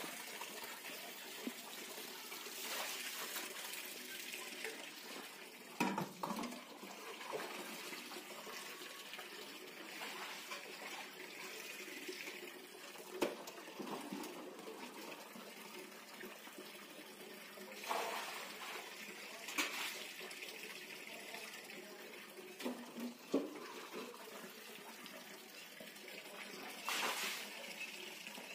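Water running from a tap into a steel bucket or tub, a steady splashing fill, with a few short knocks and clanks of the bucket along the way.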